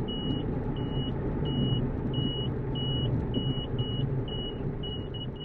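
Jodel Mascaret's engine and propeller running at low power during the landing roll on grass, heard from inside the cockpit. A high electronic beep repeats about one and a half times a second over it, coming shorter and quicker near the end.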